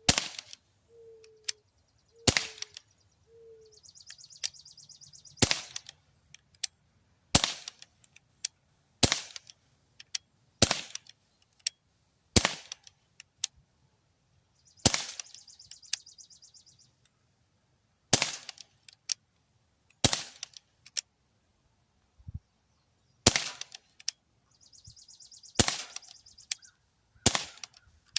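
Umarex Smith & Wesson M&P 40 non-blowback CO2 BB pistol firing steel BBs, about a dozen single shots spaced roughly two seconds apart. Each shot is a sharp pop.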